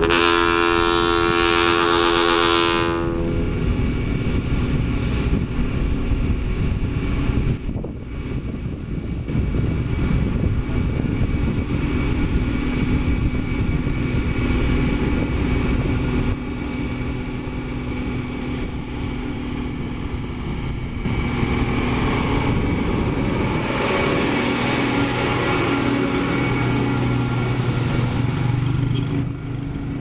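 Dump truck's air horn sounding one long blast of about three seconds, then the Hino 500 truck's diesel engine running as it drives slowly past, growing louder about twenty seconds in.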